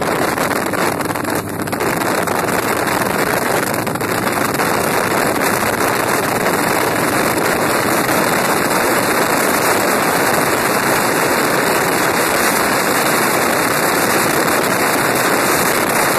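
Steady, loud rush of wind over the microphone of a camera on a motorcycle at road speed. The wind covers the bike's engine, with no clear engine note standing out.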